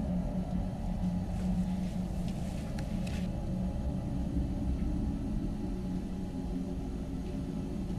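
A low, steady rumbling drone, with faint rustling about two to three seconds in.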